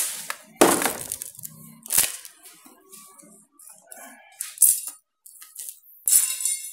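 Hard plastic and metal items clacking and clattering as a rotary hammer's plastic carry case and its bits are handled: about five or six sharp knocks, the last near the end with a brief ringing rattle.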